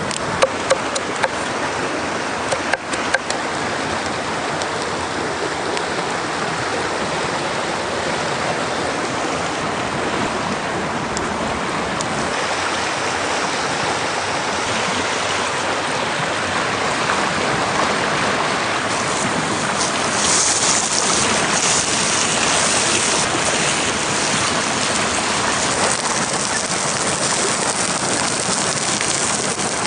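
A steady rush of water noise, with a few sharp clicks in the first three seconds and a brighter hiss from about two-thirds of the way in.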